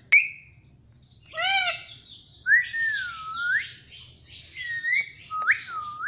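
Indian ringneck parakeet calling: a short harsh squawk, then a run of gliding whistles that dip in pitch and sweep back up. A sharp click comes at the very start.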